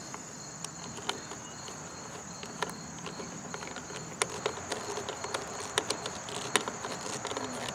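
Light, scattered clicks and ticks of a nut driver turning hex-head screws into the plastic air cleaner base of a Briggs & Stratton mower engine, snugged only until they seat. The clicks come more often in the second half, over a faint steady high-pitched hum.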